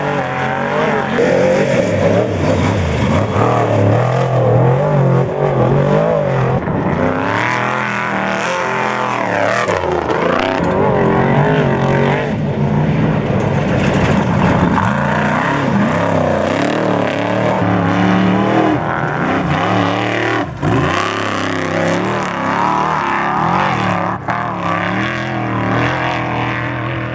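Off-road desert race truck engines running hard and revving, their pitch rising and falling continuously, with two sharp knocks in the last third.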